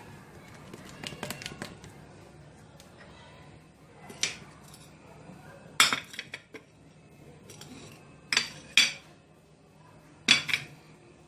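Sharp clinks and knocks of a spoon against a small container while stirring powder into shampoo, with soft clicks at first and louder knocks coming in quick pairs about every two seconds.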